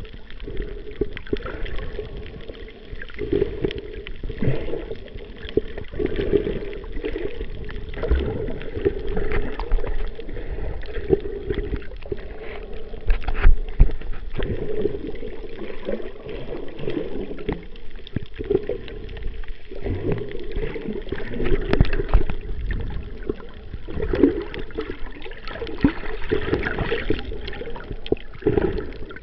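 Muffled underwater water noise around a submerged camera: irregular sloshing and gurgling surges, heaviest in the low range, with a few sharp knocks.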